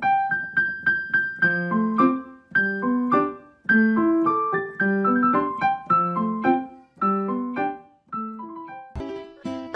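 Background music: a piano melody of short struck notes.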